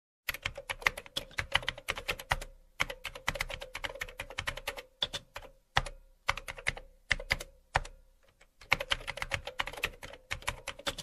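Computer keyboard typing: quick runs of key clicks broken by short pauses, the longest about eight seconds in, over a faint steady hum.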